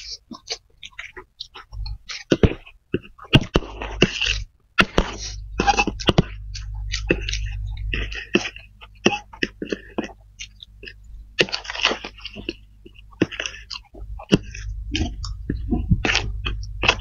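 Close-miked wet chewing and slurping of spicy fried kway teow rice noodles, in many short irregular bursts, with occasional fork scrapes against the serving tray.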